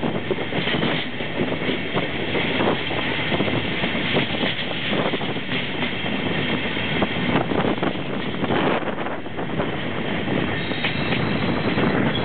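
A locomotive-hauled regional train's coaches rolling over the track, heard from an open window. There is a steady rumble with an irregular rattle of clicks from the wheels over rail joints and points, and wind on the microphone.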